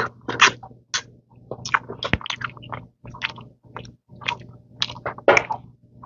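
Close-miked chewing of food, with irregular mouth smacks and clicks several times a second.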